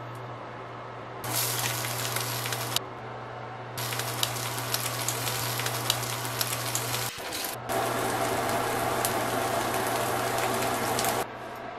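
Bell pepper rings filled with egg batter sizzling as they fry in oil in a frying pan, with scattered crackles. The sizzling comes in three stretches that start and stop abruptly, over a steady low hum.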